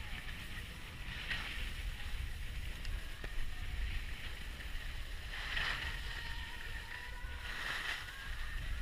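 Skis sliding over packed snow, with a hissing scrape of the edges swelling at each turn, three times, over a steady low wind rumble on the camera's microphone.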